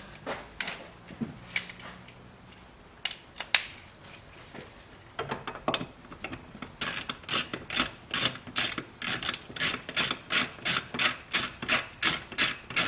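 Hand ratchet clicking as it is swung back and forth on a nut at the brake master cylinder: a few single clicks at first, then from about halfway through a steady run of about three clicks a second.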